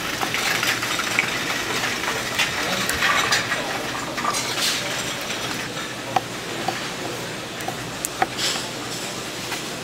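Steady background noise of a busy market stall, with a few scattered sharp clicks and clinks, two close together near the end.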